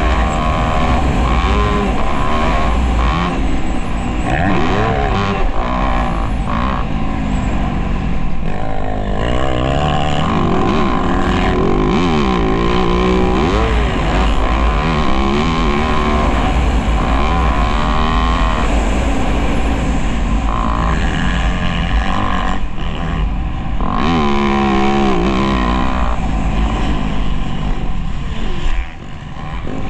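Motocross bike engine running hard, its pitch rising and falling again and again as the throttle is worked, with a brief drop in level about a second before the end.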